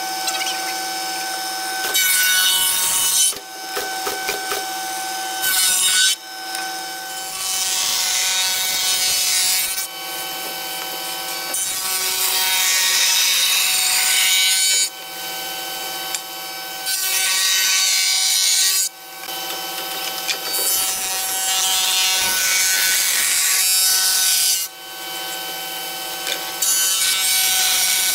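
Woodworking power tools cutting wood: a belt sander, then a spindle shaper whose cutter shapes the edge of a curved door panel. A steady motor hum runs under repeated stretches of loud hissing cutting noise that start and stop abruptly as the wood is fed in and pulled away.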